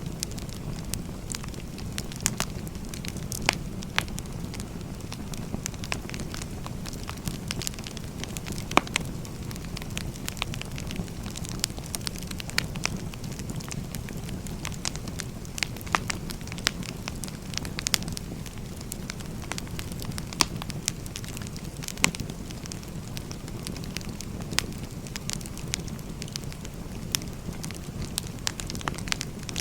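Firewood burning: irregular sharp crackles and pops over a steady low rushing noise of the fire.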